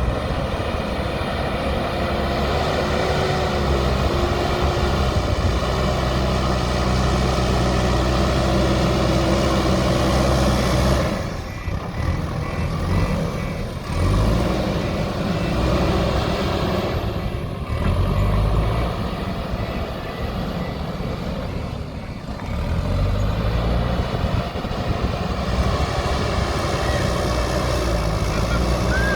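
JCB backhoe loader's diesel engine running under working load. Its pitch and level drop back and climb again a few times around the middle.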